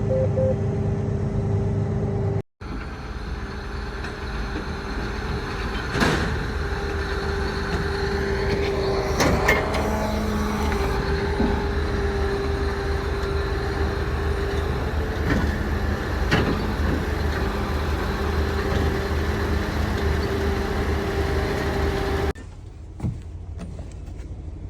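A motor vehicle running steadily, with a constant engine drone and a few sharp knocks or clunks. The sound cuts out for an instant about two and a half seconds in and drops abruptly near the end.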